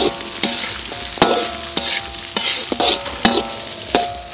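A metal ladle scraping and knocking against an aluminium wok as garlic, shallots and dried chillies are stir-fried, about two strokes a second. Each stroke sets the wok ringing, with a frying sizzle between them.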